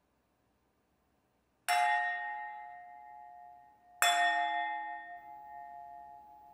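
Fine-tuned wine glasses struck by the sculpture's motor-driven mechanism, two sharp strikes a little over two seconds apart. Each strike rings on in several clear, bell-like tones that fade slowly.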